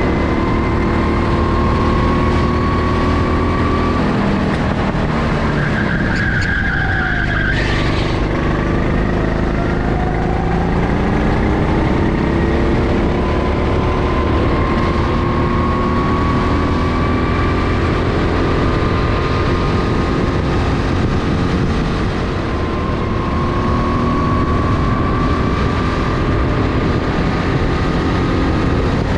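Go-kart engine running hard on a lap, close up. Its pitch falls off around five to seven seconds in as the kart slows, then climbs again as it accelerates. There is a brief high squeal just before the pitch picks back up.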